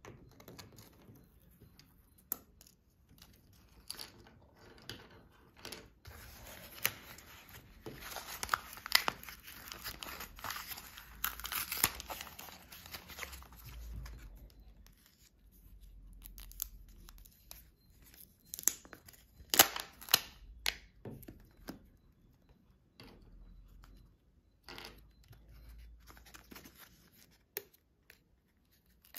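Crinkling and tearing of the foil wrapper of a Kinder Surprise chocolate egg, densest for several seconds in the first half, mixed with many sharp clicks and taps of small plastic toy parts handled on a table.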